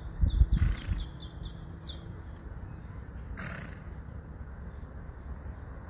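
Two short, harsh animal calls about three seconds apart, over a low rumble that fades after the first second.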